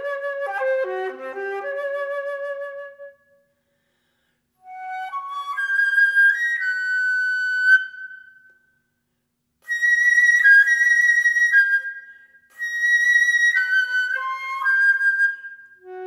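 Solo flute playing a slow melody in short phrases separated by brief silences, with a held note near the middle and higher notes in the later phrases.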